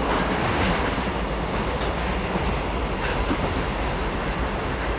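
A long freight train of container flat wagons running past, its wheels making a steady rolling rattle on the rails. A thin, steady high tone comes in about halfway through.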